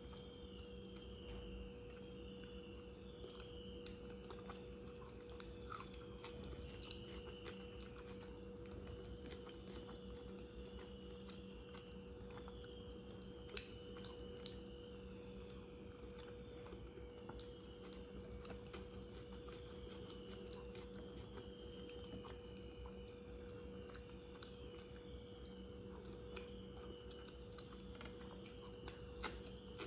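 A person chewing food with occasional short, sharp mouth clicks. Underneath are a steady low hum and a faint high-pitched chirp that falls in pitch and repeats every second or two.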